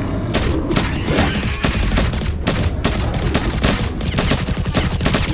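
Rapid, irregular volleys of animated gunfire sound effects, several shots a second, over a steady low rumble.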